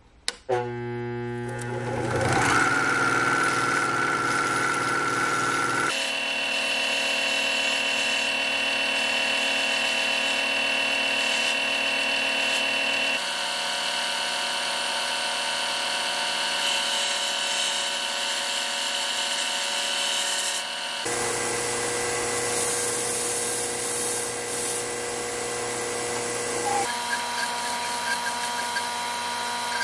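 RIKON 50-161VS variable-speed belt sander starting up just after the start and building over about two seconds to a steady motor-and-belt whine. Its pitch and tone shift abruptly a few times as different abrasive belts are run, with a steel punch pressed to the belt near the end.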